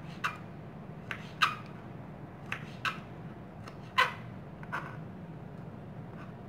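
Kitchen knife knocking and scraping against a plastic cutting board while orange pith is cut away: about seven light, irregular taps, the sharpest about a second and a half in and about four seconds in, over a steady low hum.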